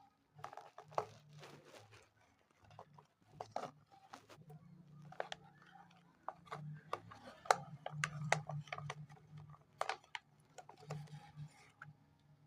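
Close-up handling of craft materials: irregular crinkles, taps and clicks over a faint low hum.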